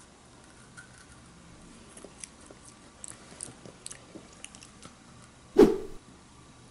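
A child chewing a crisp homemade cookie, with faint crunchy clicks scattered through the chewing. One loud short thump comes about five and a half seconds in.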